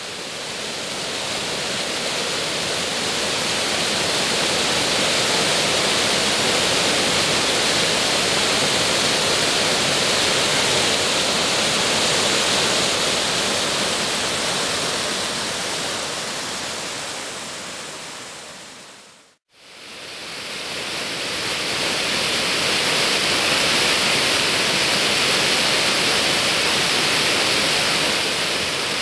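Water pouring over a stone ledge and churning into white foam below: a steady rush of falling water. About two-thirds of the way through it fades out to a moment of silence and fades back in.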